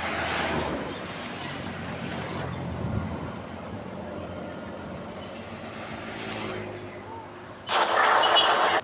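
Road traffic: a vehicle passes close in the first second or two, then a steady rumble of traffic. Near the end a loud, noisy rush starts suddenly and cuts off about a second later.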